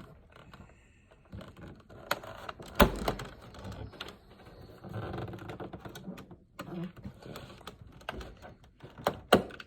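Plastic snap clips of an all-in-one PC's rear cover being pried apart, giving irregular clicks and plastic scraping and creaking. The loudest is a sharp snap about three seconds in, with two more quick clicks near the end.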